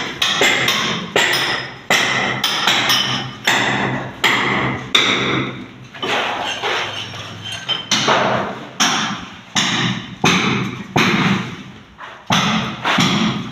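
Repeated hammer blows at an uneven pace, about one to two a second, each with a short ringing tail.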